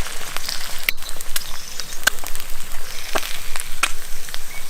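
Steady sizzling hiss with scattered sharp crackles, like food frying in a pan.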